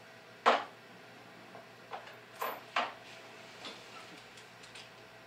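Clicks and knocks of a Torx driver bit being picked out of a plastic bit box and pushed into an electric screwdriver's bit holder. One sharp click comes about half a second in, followed by several softer clicks.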